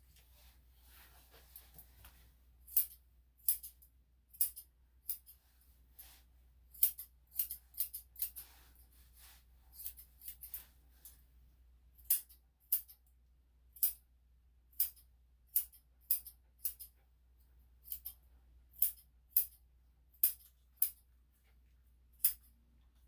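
Grooming scissors snipping the fur on a dog's paws: crisp metallic snips, singly and in quick runs of two or three, about thirty in all, starting a few seconds in.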